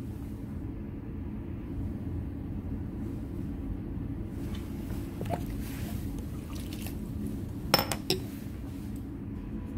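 Steady low hum of room tone, with two sharp clinks close together near the end as lab glassware on the bench is handled.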